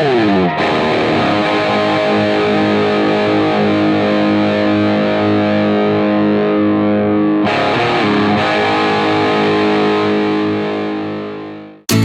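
Intro music: distorted electric guitar chords, each left to ring out. A second chord is struck about halfway through and fades away near the end.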